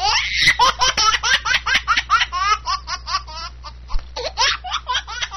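A baby laughing hard in a fast run of short laughs, about five or six a second, easing off briefly a little past the three-second mark and picking up again near the end.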